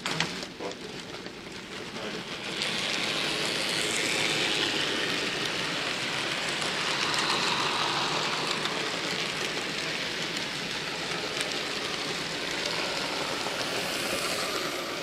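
N gauge model train running along the track, its wheels on the rails making a steady rolling rattle and hiss, louder from about two and a half seconds in.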